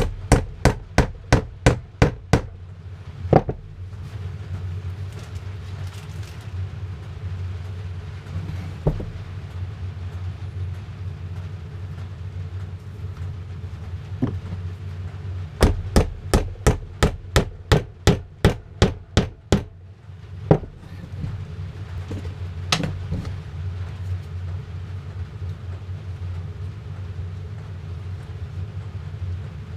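Hammer tapping a small nail into a wooden beehive frame in two quick runs of light strikes, three to four a second, with a few single knocks between. The nail pins the loop of the foundation wire to the frame.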